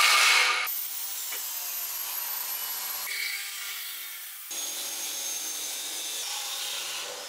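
Abrasive chop saw cutting through metal square tubing: a steady harsh grinding hiss with a thin high whine, starting abruptly and loudest in the first half second. The sound shifts about three seconds in and again after four and a half seconds.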